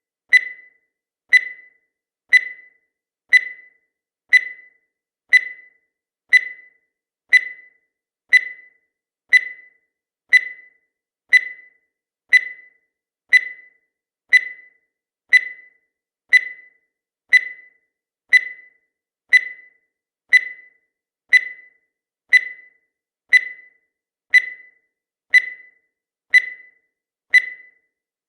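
Countdown timer sound effect: a short, high electronic ping about once a second, each dying away quickly.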